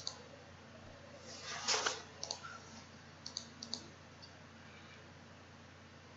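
Computer mouse buttons clicking, several times and often in quick pairs, over a faint steady hum. A brief, louder rush of noise comes about a second and a half in.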